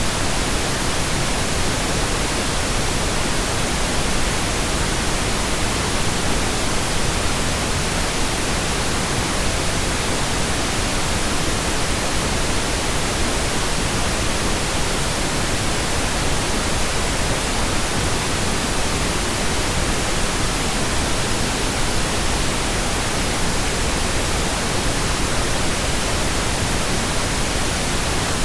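Steady synthetic pink noise, generated digitally: an even, unchanging hiss with no tones or events.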